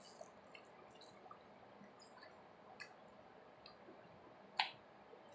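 Faint wet chewing and mouth clicks from someone eating soft cheese scrambled eggs, with one sharper click about four and a half seconds in.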